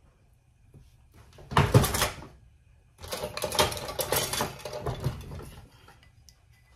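A spatula scraping the last of the melted butter out of a ceramic ramekin: a short loud scrape about a second and a half in, then a longer rough scraping lasting a couple of seconds.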